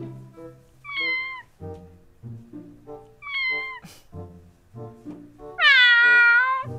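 Recorded cat meows played from a cat-translator app on a smartphone: two short meows falling in pitch, about a second and three seconds in, then a long, louder meow near the end. Background music with a steady plodding beat runs under them.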